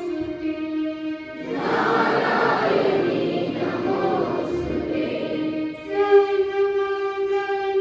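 A group of voices singing together in long held notes. From about a second and a half in, the sound turns rougher and noisier for about four seconds before the clear held notes return.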